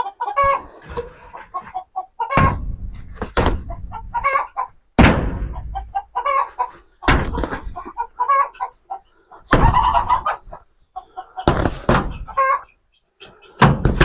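Hens clucking in short calls, broken by several loud rustling thumps as heavy landscape fabric is pulled and shaken loose from the base of the chicken coop, the loudest about five, seven and ten seconds in.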